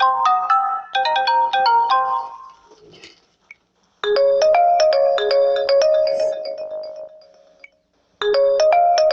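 Coolpad Note 5 Lite phone ringtones: a quick, bright melodic phrase fades out about two and a half seconds in. After a short pause a different ringtone melody with lower, held notes starts, and it begins again about four seconds later.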